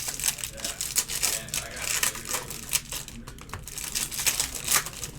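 Trading-card packs being opened and handled: wrappers crinkling and tearing in a dense, irregular run of crackles and rustles.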